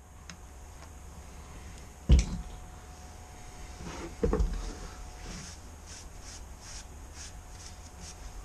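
Handling noises as toilet cleaner is squeezed onto a sponge pad: a sharp knock about two seconds in and a second clunk a couple of seconds later, then soft, repeated wiping strokes of the wet sponge on a motorcycle's exhaust header pipe.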